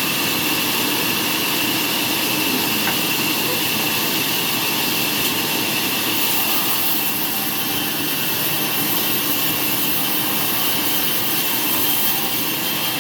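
Sawmill machinery running steadily: a constant rushing noise with a steady high whine over it.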